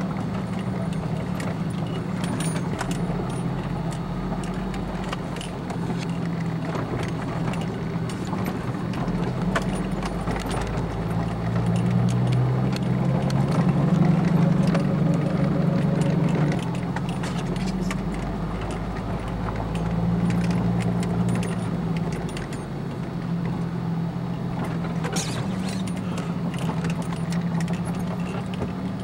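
A four-wheel-drive vehicle's engine running under load as it crawls over a rocky trail, heard from inside the cab, with constant rattling and jingling of loose items as it jolts. The engine note strengthens about twelve seconds in and eases back a few seconds later.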